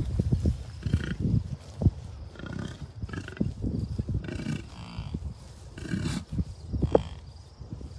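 Wind buffeting the microphone in irregular gusts, making a low, uneven rumble.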